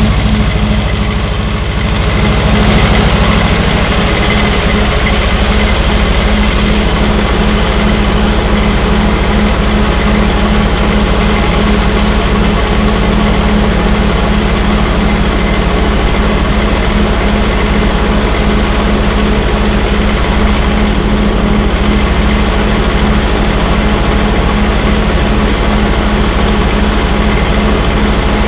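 Continental F-163 four-cylinder gasoline engine of a Lincoln SA-200 welder, running steadily and evenly through a muffler after a tune-up with new spark plugs and a rebuilt carburettor.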